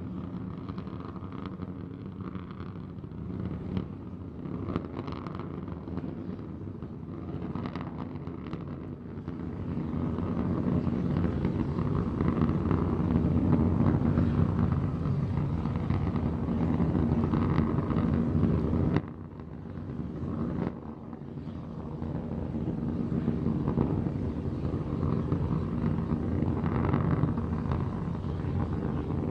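Steady rumble of Starship SN15's three Raptor engines burning during ascent. It grows louder about a third of the way in and drops away abruptly twice near two-thirds through before returning.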